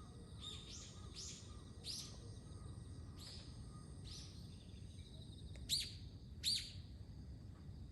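Starlings giving a series of short, sharp, high calls, about nine in all, the two loudest coming a little before and after six seconds in.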